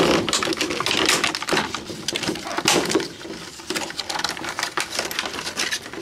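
A cardboard box and its clear plastic clamshell being opened and handled: irregular rustling, crinkling and sharp plastic clicks as the box slides open and the insert is pulled out.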